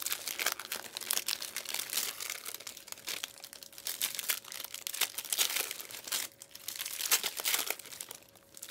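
Plastic packaging crinkling and rustling in irregular short bursts as it is handled, over a faint steady hum.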